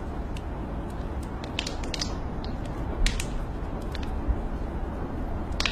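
Wood fire crackling in a fireplace, with a few sharp pops scattered through, the loudest about three seconds in, over a steady hiss and rumble of rain.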